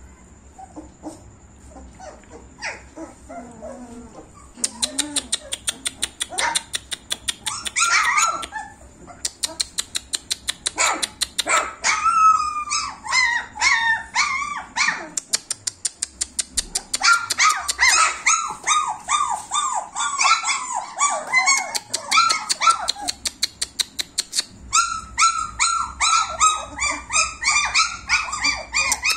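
A litter of 26-day-old German Shepherd puppies yelping together, many high-pitched cries overlapping. The cries are faint for the first few seconds, then start in earnest about four seconds in and go on almost without a break.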